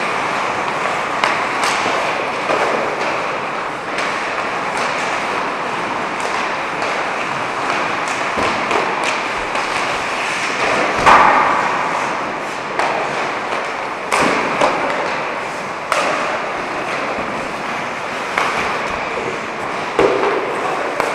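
Ice hockey practice on an indoor rink: a steady hiss of skates on the ice, broken by irregular sharp clacks and thuds of sticks striking pucks and pucks hitting the boards. The loudest knock comes about 11 seconds in.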